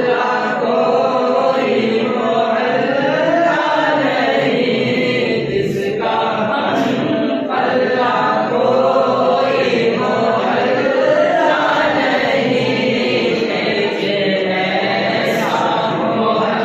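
A naat, an Urdu devotional poem in praise of the Prophet, sung unaccompanied by a male voice in long, slowly wavering held notes.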